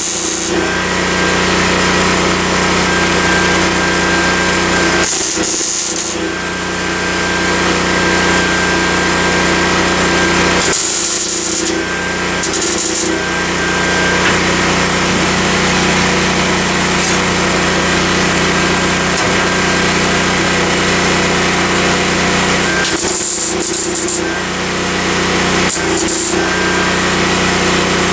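A power tool running in long steady stretches, with short breaks about five, eleven to thirteen, twenty-three and twenty-six seconds in.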